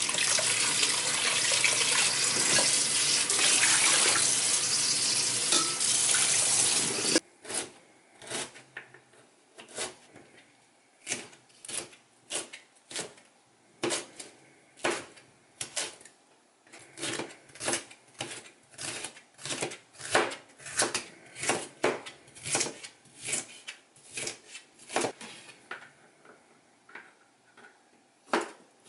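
Kitchen tap running into a stainless steel sink with a hand rinsing under the stream, cut off suddenly about seven seconds in. Then a knife slicing bell peppers on a plastic cutting board: a long run of separate knocks, roughly one to two a second.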